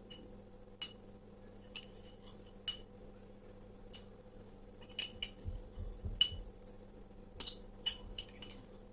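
A metal tablespoon clinks against a glass about a dozen times at an irregular pace as spoonfuls of herbal decoction are scooped out. Each clink is sharp and rings briefly.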